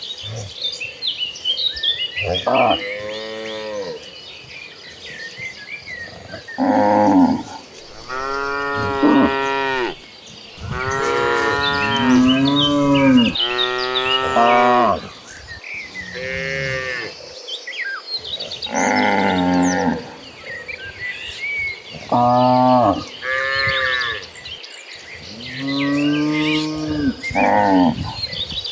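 Several cattle mooing over and over, about ten long calls, some overlapping, one following another every few seconds. Faint high chirps of insects or birds run underneath.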